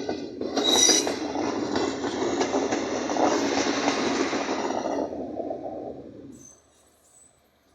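Passenger train coaches rolling past at speed, a steady rumble on the rails with a brief high metallic squeal about a second in. The sound dies away at about six and a half seconds.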